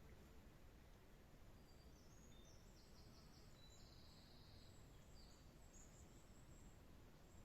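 Near silence: faint small songbird singing, a quick high-pitched phrase of rapid trilled notes about two seconds in and a few more notes near the end, over a low steady background hiss.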